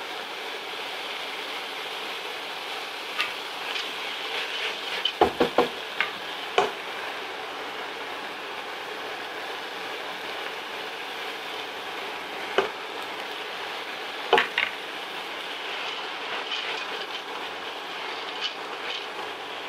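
Diced vegetables and lentils sizzling in a stainless steel pot as they are stirred with a silicone spatula. Sharp knocks of the spatula against the pot: a quick cluster about five seconds in, and a few more later.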